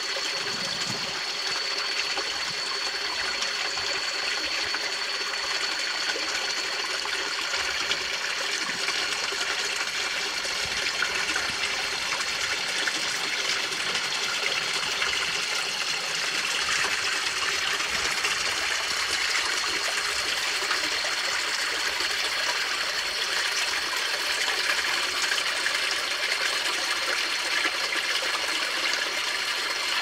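Shallow rocky stream running over stones, a steady rush and trickle of water, with a thin steady high whine above it.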